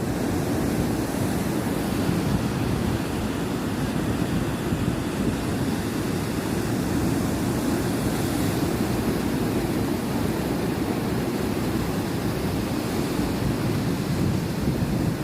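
Sea waves washing on the shore in a steady rush, with wind buffeting the microphone.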